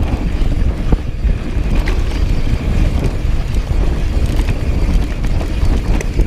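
Wind buffeting the microphone and tyres rumbling over dirt as a full-suspension mountain bike, a 2018 Rocky Mountain Instinct, descends a downhill trail at speed. Scattered clicks and rattles from the bike run through it.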